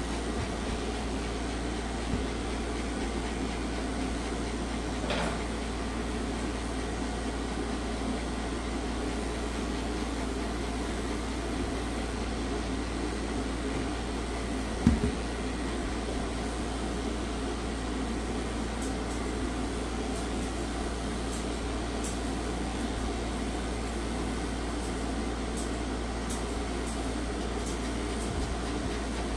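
Steady machine hum running throughout, with one sharp knock about halfway through.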